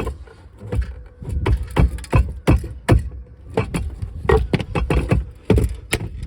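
A run of hammer blows on a cast aluminium LED light housing: about fifteen sharp, irregular knocks, two or three a second.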